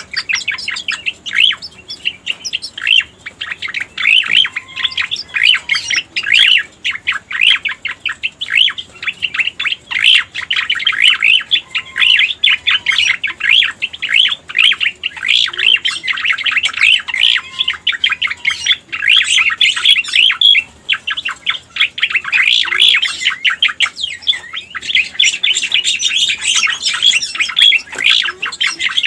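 Cica koreng (cucak koreng) song: a fast, unbroken stream of high chirps and trills, with a few softer, lower whistled notes mixed in. It is a lure and tutoring recording of the bird's song.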